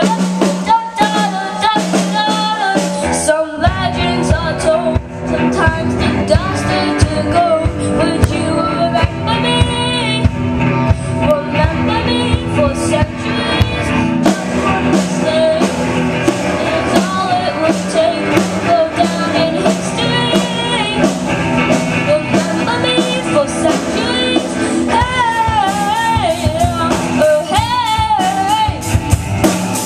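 Live rock band playing: a young singer's voice over electric guitar and drums. The accompaniment grows fuller and heavier in the low end about three and a half seconds in.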